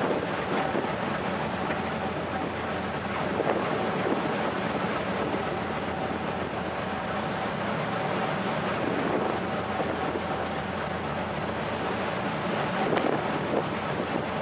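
Steady drone of a ferry under way, heard on deck, with wind buffeting the microphone and water rushing past the hull. The wind swells briefly a few times.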